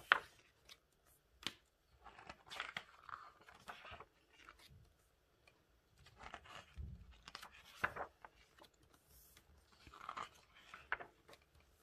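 Glossy pages of a large photobook being turned by hand: paper rustling and flapping in several short bursts, with a sharp page snap at the very start.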